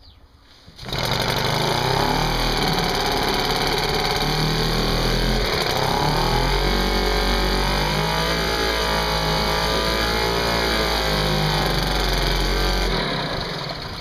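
British Seagull 40 (Type FP) single-cylinder two-stroke outboard catching on a rope pull about a second in and running, its speed wavering up and down. It stops about a second before the end.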